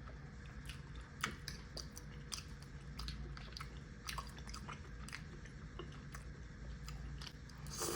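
A person chewing and eating soft food up close, with wet mouth clicks and smacks scattered irregularly over a low steady hum.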